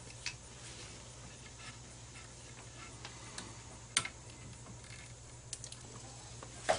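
Scattered light clicks and ticks of copper wire being handled and twisted together, with a sharper click about four seconds in and another near the end.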